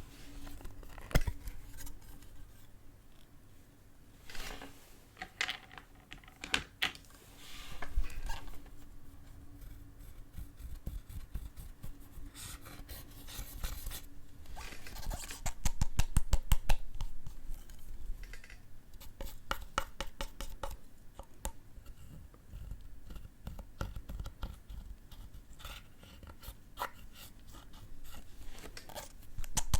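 Slime being worked by hand, with quick runs of small clicking pops and a stretch of scraping.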